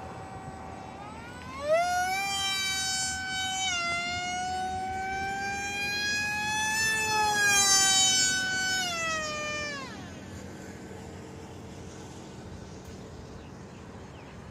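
Radio-controlled Su-30 model jet's motor whining in flight, getting suddenly louder about two seconds in, its pitch sliding up and down. About ten seconds in the pitch drops steeply and the whine fades to a faint hum as the plane flies off.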